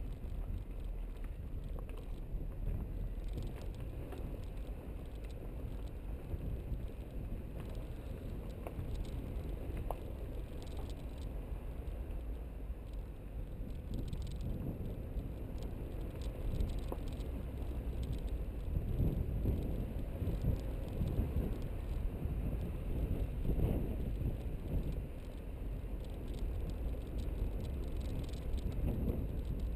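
A car rolling slowly down a rough, grooved concrete mountain track: a steady low rumble of the tyres and body on the uneven surface, with scattered small clicks and crackles from grit under the wheels.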